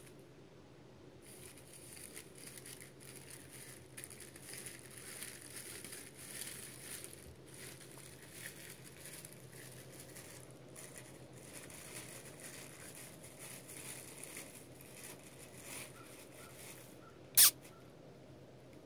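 Miniature poodle puppies shifting about on a rug: soft, irregular scratchy rustling. Near the end comes one sharp, loud, high squeak that drops quickly in pitch.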